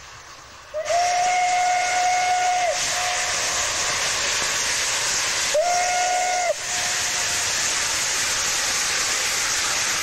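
Steam locomotive's whistle blowing twice, a long blast about a second in and a shorter one past the middle, over the steady hiss of steam and exhaust of an engine working hard.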